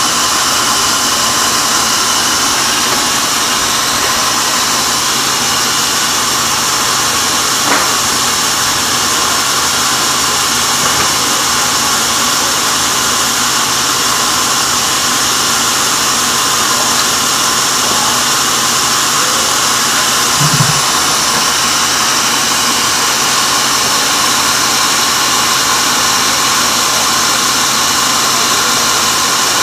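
Band sawmill running steadily as its blade cuts through a teak log on the carriage, with a brief low knock about two-thirds of the way in.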